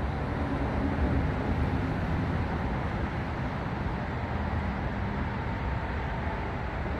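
Steady low rumble of an approaching diesel freight locomotive, mixed with city traffic noise, with a faint engine hum over it.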